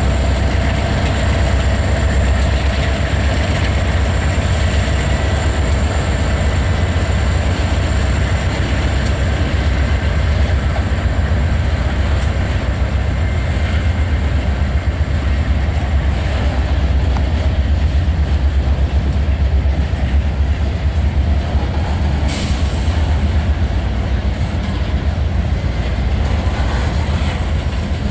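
Freight train rolling past, a steady heavy rumble of wheels on the rails with faint clickety-clack.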